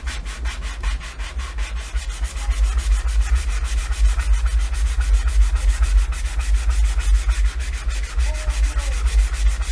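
Sanding block rubbed by hand over a painted wooden board in quick, even back-and-forth strokes, scuffing off the top coat of paint to expose the layer beneath.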